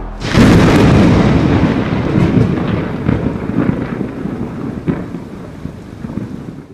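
Thunder-crash sound effect for a logo sting. A swell leads into a sudden heavy crash about half a second in, followed by a long rumble with scattered sharp crackles that slowly fades, then cuts off abruptly.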